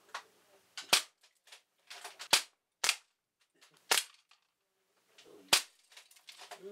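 Hammerli 850 Magnum CO2 air rifles firing: five sharp pellet shots in about five seconds, with fainter cracks and knocks between them.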